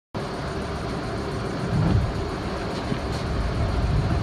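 Vintage New York City subway museum train standing in the station, giving a steady low rumble and hum, with a brief louder rumble about two seconds in.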